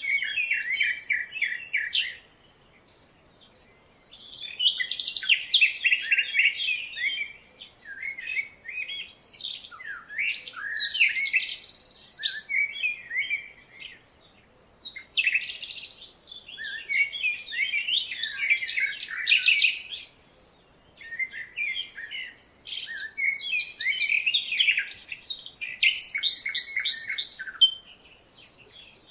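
Songbirds singing in phrases of quick, high chirps and trills, separated by short pauses of a second or two.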